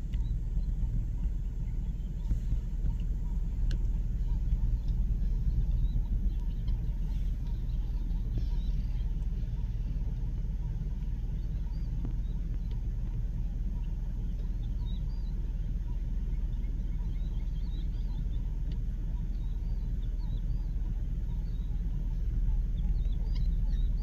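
Vehicle engine idling steadily with a low rumble, with faint bird chirps scattered over it, more of them in the second half.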